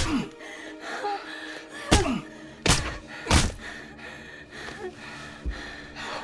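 Punches landing on a person in a quick series of four hard thuds, the last three within about a second and a half, each followed by a short falling groan of pain. Faint music underneath.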